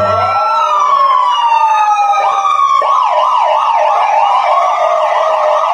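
Police car siren with a slow wail for about the first three seconds, then a switch to a fast yelp rising and falling about four times a second.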